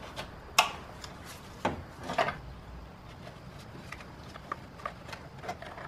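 A wrench clicking and rubbing on the 19 mm banjo bolt at the front of the M54 engine's Vanos unit while the Vanos oil line is freed and handled by hand. There are three sharp metal clicks in the first couple of seconds, then fainter ticks.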